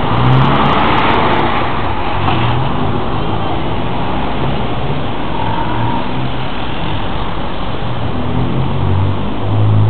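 Street traffic: car engines running over a steady rush of road noise, with one engine's low hum growing louder near the end.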